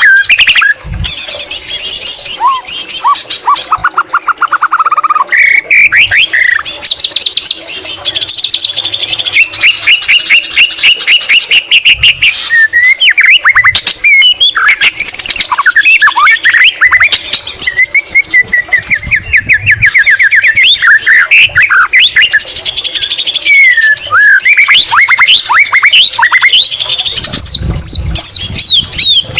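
White-rumped shama in full continuous song: rapid runs of repeated whistled notes, fast trills and quick sweeping phrases, its song filled in with phrases mimicked from the greater green leafbird.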